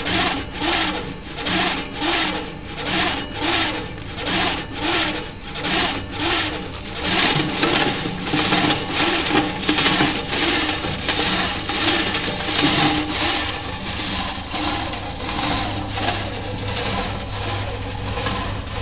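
YK160 oscillating granulator running, its stainless-steel bar rotor swinging back and forth with a rhythmic rubbing sound of about two strokes a second. After about seven seconds damp pink mass is being worked through the screen, and the sound becomes denser and steadier, the strokes less distinct.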